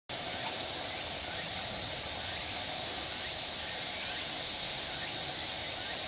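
Steady, high-pitched shrilling of insects such as crickets or cicadas, with a regular pulsing in its highest part from about halfway through.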